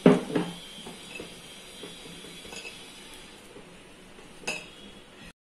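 Light glassy clinks and knocks from a glass bowl as a hand kneads flour dough in it. A sharp clink comes right at the start, then a few faint ones and another clear clink about four and a half seconds in.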